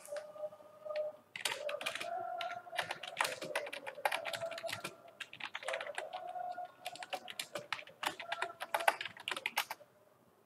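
Typing on a computer keyboard: quick runs of key clicks with short pauses between them, stopping shortly before the end.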